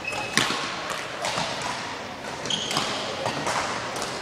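Badminton racket striking a shuttlecock with a sharp crack about half a second in, followed by lighter knocks and a couple of brief squeaks of sports shoes on the court floor.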